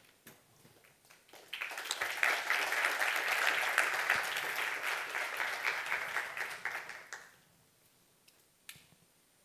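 Audience applauding, starting about a second and a half in, holding for about five seconds and dying away after about seven seconds.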